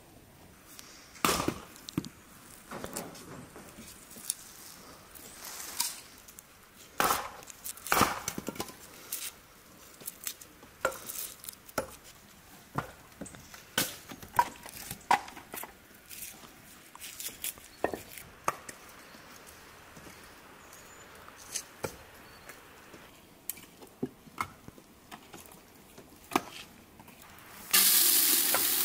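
Garlic being handled and cut on a wooden board: scattered knocks and clicks at an uneven pace. Near the end, dry rice is poured from a tray into a metal bowl, a sudden loud steady hiss.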